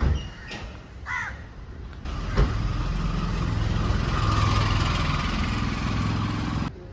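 A motor vehicle's engine starts running about two and a half seconds in and runs steadily, then cuts off suddenly near the end. A single bird call is heard about a second in.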